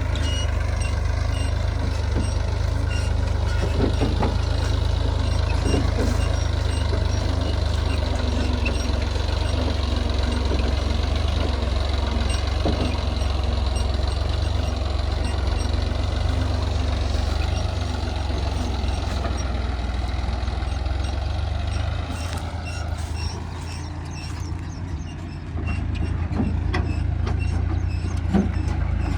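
Heavy diesel machinery running steadily, a backhoe loader and tractors at work, with a few short knocks. The engine noise eases off briefly near the end, then comes back.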